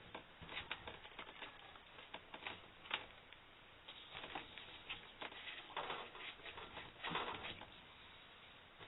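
Hands handling objects at close range: irregular rustles, taps and clicks, louder in clusters about four, six and seven seconds in.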